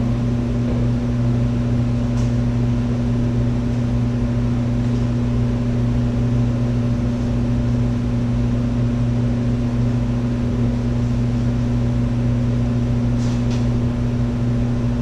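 Harley-Davidson Road King's V-twin engine idling steadily. A few faint light clicks come about two seconds in and near the end.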